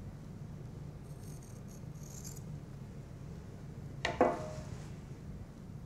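Surgical scissors being handled: a faint rustle, then a single sharp metallic click with a brief ring about four seconds in, over a low steady room hum.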